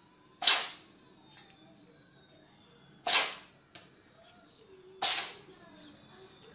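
Cat sneezing three times, short sharp hissy bursts about half a second, three seconds and five seconds in.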